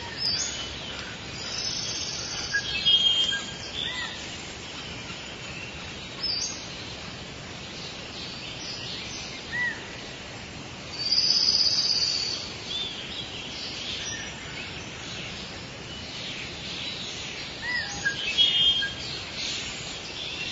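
Rainforest ambience: a steady hiss of background noise with scattered bird calls and chirps, including louder calls about 11 seconds in and again near the end.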